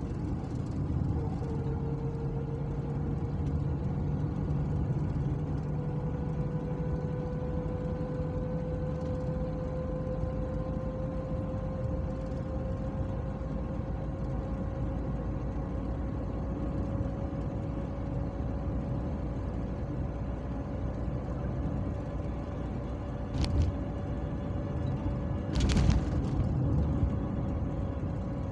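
Car engine and road noise heard from inside the cabin while driving, with a steady whine that slowly rises in pitch. Near the end come two short thumps, the second louder.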